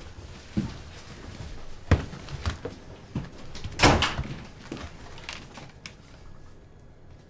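Footsteps and knocks in a house hallway, a sharp knock about two seconds in, then a door banging shut about four seconds in.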